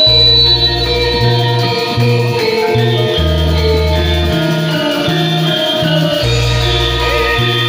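Live Javanese gamelan music: metal keyed instruments with an electronic keyboard holding deep bass notes that change every second or so.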